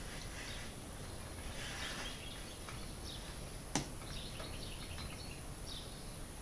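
Faint birds chirping intermittently over a steady high-pitched whine, with a single sharp click about four seconds in.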